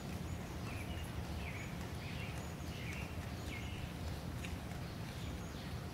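Outdoor ambience: a steady low hum with a short chirp repeating about every three-quarters of a second.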